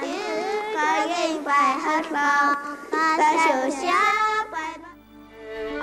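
A child singing, the voice sliding between notes; the singing fades away about four and a half seconds in, leaving low held tones.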